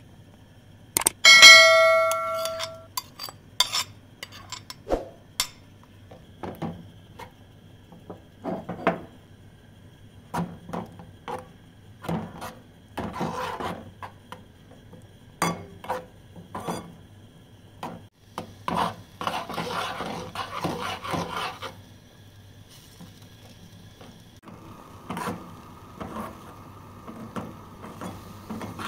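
A china plate clinks against the rim of a metal pot with a short ringing tone about a second in. After that a utensil scrapes and taps irregularly against the pot while eggs and spinach are stirred into fried onions.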